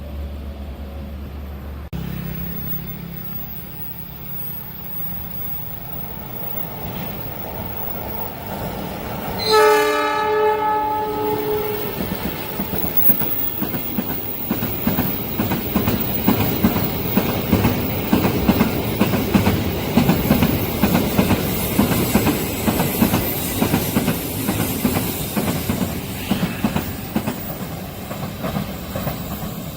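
A train horn sounds for about two seconds about ten seconds in, then a long train passes with a steady rumble and a rhythmic clickety-clack of wheels over the rail joints.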